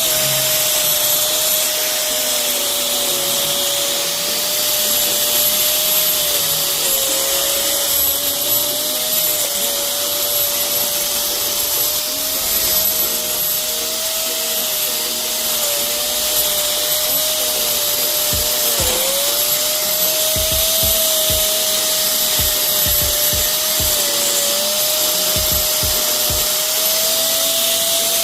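Electric grinder running continuously as it grinds out old cracked mortar joints, a steady motor whine over a loud grinding hiss. The motor's pitch sags briefly a couple of times, sharpest about two-thirds of the way through.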